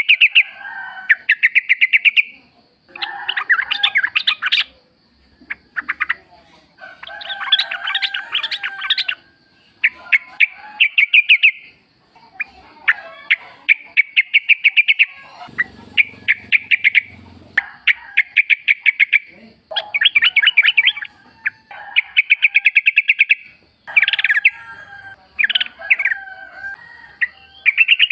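Wild yellow-vented bulbuls (trucukan) singing: burst after burst of quick, repeated chirping notes, each run lasting a second or two. A faint steady high tone runs underneath.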